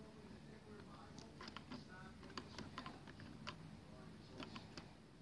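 Faint, irregular plastic clicks and rattles from a toy garbage truck's lifting arm being worked by hand.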